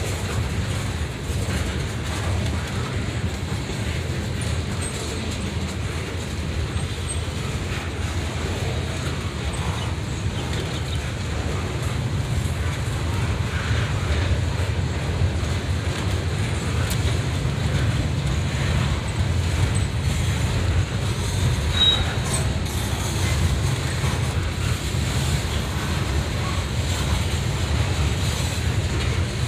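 Freight train cars rolling past, first flatcars loaded with wrapped lumber and then tank cars, making a steady low rumble of steel wheels on rail. A brief high wheel squeal sounds about three-quarters of the way through.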